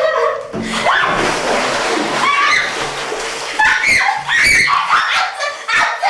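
Water splashing for about three seconds, with women shrieking and squealing over it and after it.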